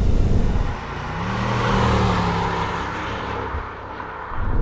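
Dinan-tuned BMW M550i's twin-turbocharged 4.4-litre V8 under power, through a Dinan cat-back exhaust. Loud wind and road rumble drop away in the first second, then a steady exhaust note swells and fades.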